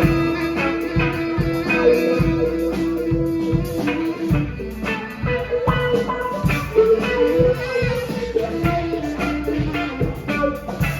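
A band playing an instrumental passage: a drum kit beat under held melody notes.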